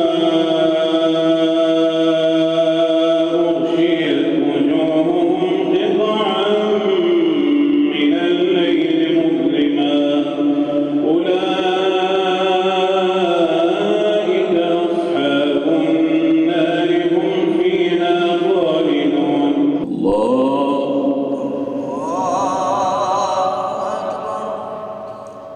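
A single male voice recites the Quran aloud in a melodic, chanted style, the imam leading the prayer, holding long notes with ornamented turns. The voice breaks off about twenty seconds in, and a second, shorter phrase follows and fades out near the end.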